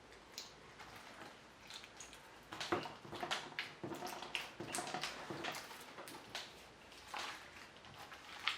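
Clear-glue slime with jelly cubes being squeezed and poked by hand: a run of faint, irregular wet clicks and squishes, busiest in the middle.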